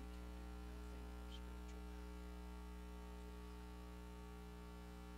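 Steady electrical mains hum from the sound system.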